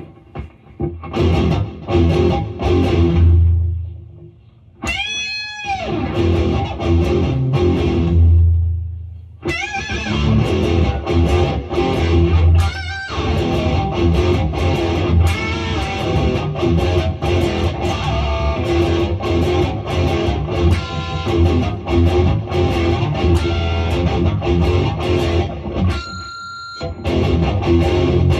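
Distorted electric guitar playing a djent-style riff of heavy, low palm-muted chugs broken by short stops. About five seconds in, a high note swoops up and falls back, and near the end a high note rings on its own.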